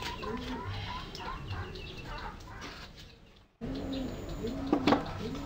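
Pigeons cooing over and over, with small birds chirping in the first half. The sound cuts out briefly about three seconds in, and there is one sharp knock near the end.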